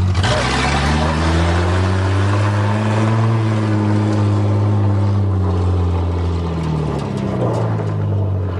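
1982 Toyota Cressida's engine pulling away under acceleration. Its pitch climbs for about three seconds, then falls away as it eases off, and it settles lower near the end.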